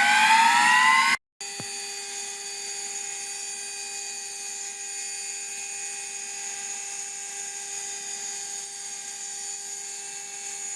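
Spindle of a small CNC stone-carving machine whining: about the first second it rises in pitch as it speeds up, then after a brief break it runs at a steady high whine.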